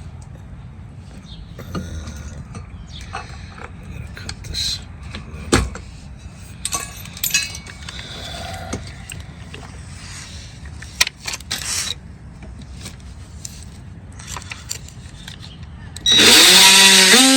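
Scattered knocks and clicks over low background noise. Then, about a second before the end, a power tool starts with a rising whine and runs loudly at a steady pitch.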